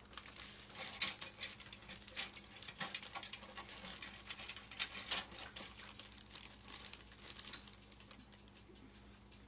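Clear plastic bags holding plastic model-kit parts trees crinkling as they are handled, in irregular crackles that die away near the end.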